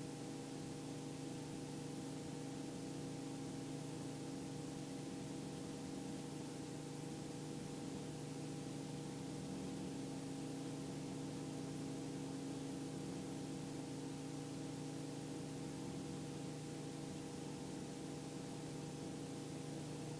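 Robinson R44 II helicopter running on the ground, heard as a steady hum of several constant tones over an even hiss.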